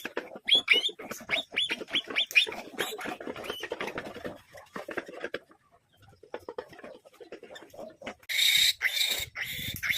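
Three-day-old piglets squealing while being handled: a run of short high squeals in the first few seconds, then louder, longer squeals from about eight seconds in.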